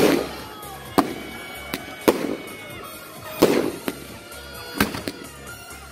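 Aerial fireworks shells bursting: a string of sharp bangs roughly one a second, the loudest at the very start.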